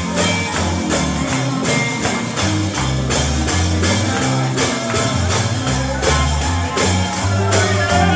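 Live gospel band music: bass notes under a steady, evenly spaced beat, with tambourine shaken in time.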